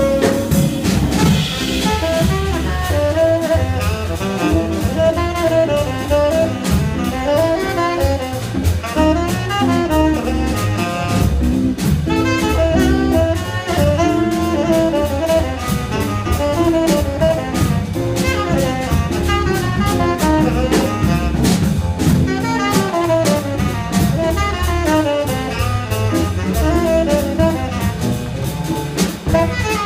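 Jazz quintet playing live: a horn, most likely a saxophone, carries a running melody over drum kit and double bass, with cymbals ticking steadily throughout.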